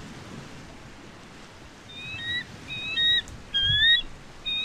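Bald eagle calling: a series of high, thin, piping chirps starting about halfway through, each rising slightly in pitch, the loudest a little before the end.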